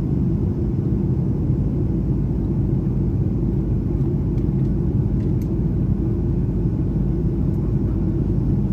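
Airliner cabin noise in flight: a steady low rumble.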